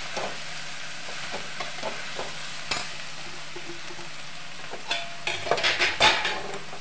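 Vegetables sizzling as they stir-fry in a metal wok, with a metal spatula scraping and tapping against the pan as it turns them. The scraping grows busier and louder about five to six seconds in.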